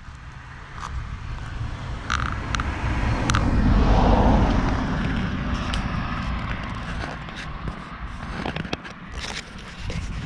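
Action camera being handled by hand: fingers rub and tap on the housing, giving scattered clicks and scrapes over a low rumble that swells to a peak a few seconds in and slowly fades.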